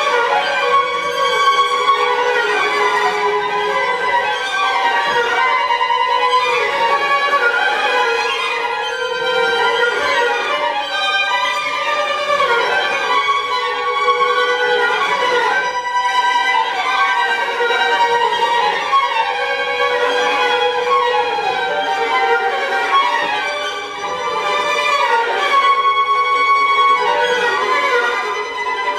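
String quartet of two violins, viola and cello playing contemporary chamber music, with many overlapping notes shifting and sliding in pitch and a brief dip in loudness near the end.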